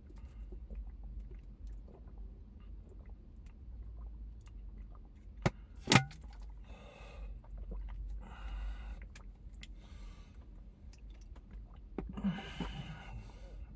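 A person chewing a mouthful of chili cheese chicken tortilla, with a couple of sharp clicks about halfway through, over a steady low hum.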